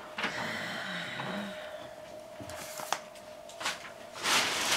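Packaging being handled: a sliding scrape for the first couple of seconds, a sharp click about three seconds in, then loud crinkly rustling of a plastic bag near the end.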